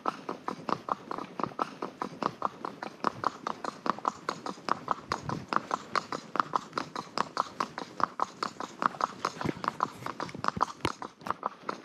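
Horse's hooves clip-clopping in a steady run of knocks as it is ridden at a walk.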